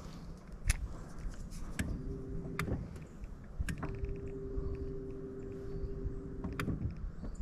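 Electric trolling motor running with a steady whine in two short spurts, a brief one about two seconds in and a longer one of about three seconds, with sharp clicks as it is switched on and off to hold the boat out of the current.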